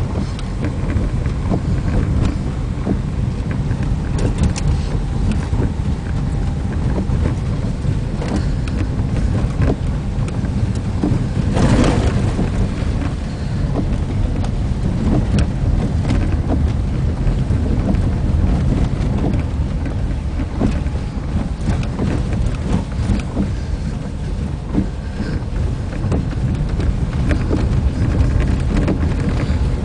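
Vehicle driving along a wet unpaved dirt road: a steady low rumble of tyres and engine with scattered small knocks, and a louder rushing burst about twelve seconds in.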